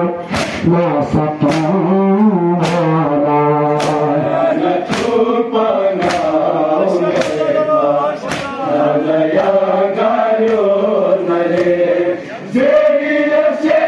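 Balti noha chanted by male voices, a lead singer with a crowd of men singing along, over sharp slaps of hand-on-chest matam about once a second.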